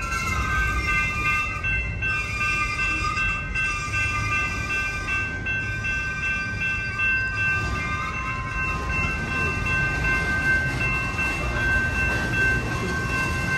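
Boxcars of a BNSF manifest freight train rolling slowly past: a steady low rumble of wheels on rail, with a high-pitched wheel squeal of several held tones over it.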